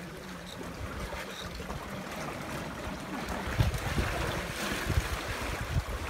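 Shallow seawater splashing and sloshing at a rocky shore as an opened sea urchin is swished and knocked in it to rinse out the inedible parts, with wind buffeting the microphone.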